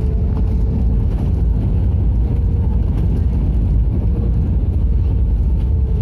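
Inside the cabin of an Airbus A320 during the landing roll: a steady, loud low rumble of the airliner racing down the runway with its ground spoilers up, with a faint steady hum over it.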